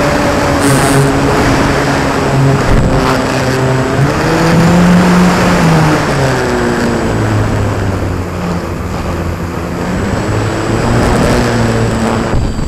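Electric motor and propeller of an RC Sukhoi Su-29 aerobatic model plane, heard from a camera on board, the pitch rising and falling as the throttle changes, over a steady rush of wind.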